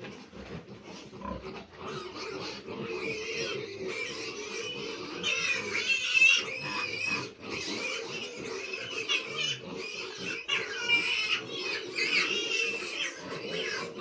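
A litter of piglets squealing and squeaking as they suckle from a sow, with lower grunting underneath. The calls go on without a break and are loudest about six seconds in.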